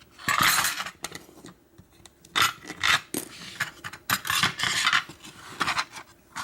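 A series of about six short scrapes and rubs, handling noise from a padlock and lockpicking tools being worked by hand.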